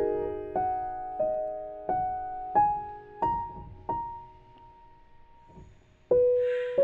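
Slow, soft solo piano score, single notes struck one after another and left to die away. About four seconds in the playing pauses on one ringing note, then resumes near the end, joined by a brief soft hiss.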